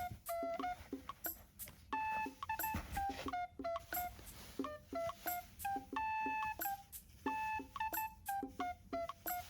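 Background music: a light tune of short, clipped notes that sound like beeps.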